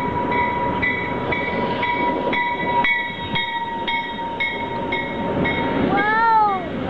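Train pulling in alongside the platform: a steady rumble with a long, steady squeal that fades out about five seconds in, and a high beep repeating about twice a second. Near the end, a short high cry that rises and falls in pitch.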